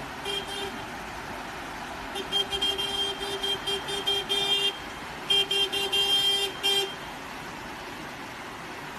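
Car horn honking at a crocodile in the road to get it to move: one short toot, then a long run of rapid short toots and, after a brief pause, a second run.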